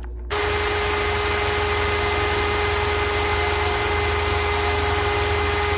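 Small electric drill running at a steady speed, a constant whine starting about a third of a second in, as a greased 1.6 mm bit drills out the post of a diecast Hot Wheels car to take an M2 screw.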